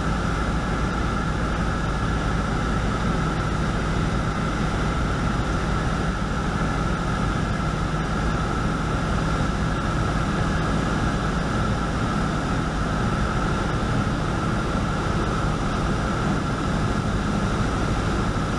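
Single-engine piston airplane's engine and propeller heard from inside the cockpit, a steady drone at reduced approach power (about 1700 rpm, carburettor heat on) with wind noise over the airframe.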